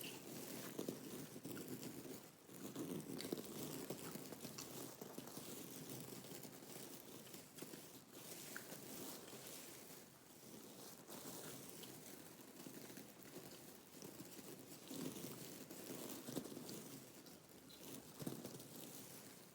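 Close-miked ASMR trigger sounds: a soft, continuous rustling and scratching with many small clicks, rising and falling in loudness.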